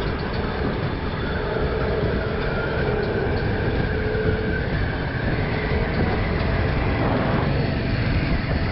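Motorcycle riding at road speed: the bike's engine running steadily under a dense rumble of wind and road noise on a helmet-mounted camera, with traffic alongside.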